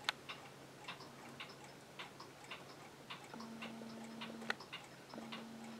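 Mechanical pendulum wall clock ticking faintly and evenly, about two ticks a second, over a low steady room hum.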